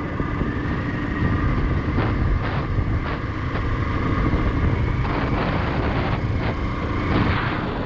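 Motorcycle running along a rough off-road track: a steady engine and road rumble with a series of short knocks and rattles from about two seconds in.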